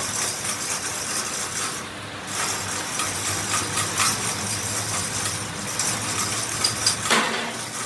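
Metal parts clicking and rattling in quick, uneven succession over a steady low hum, with a cluster of sharper clicks near the end.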